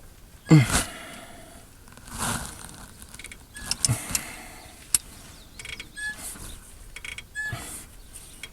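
Metal clunks, clicks and rattles of tools and parts being worked under a pickup truck, with one loud clunk about half a second in followed by a string of smaller knocks and clicks.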